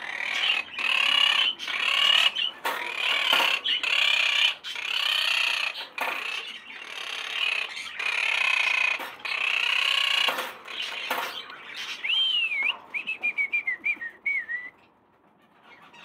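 Parrots squawking: a long run of harsh, rapid calls, then, about twelve seconds in, a short warbling whistle that falls in pitch.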